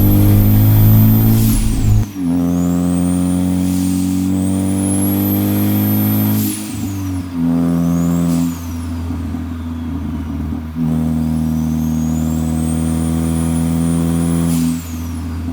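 Turbocharged Ford Focus ST with a Garrett G25-550 turbo accelerating hard through the gears: engine pitch climbs, drops at a shift about two seconds in and again near seven seconds, then builds again from about eleven seconds. A high turbo whistle rises with each pull and swoops down each time the throttle comes off.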